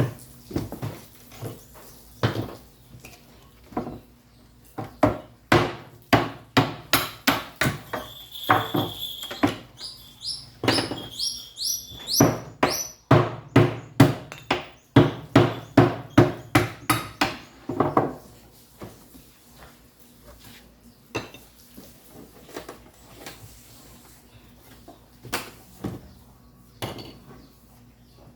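Hammer blows on a wooden crate as it is knocked apart, coming in fast runs of two to three strikes a second through the middle, with a few short, rising squeaks partway through.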